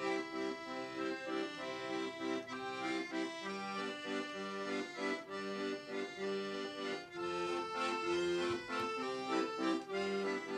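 Piano accordion playing a lively traditional folk tune, a melody over a steady rhythm of chords.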